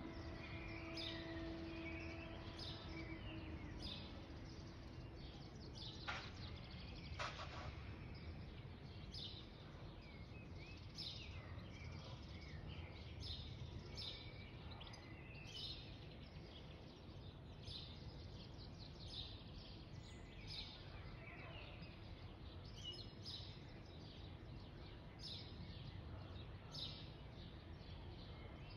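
Faint outdoor ambience: small birds chirping in short calls every second or so over a steady low rumble. A faint steady hum fades in the first few seconds, and two sharp clicks come about six and seven seconds in.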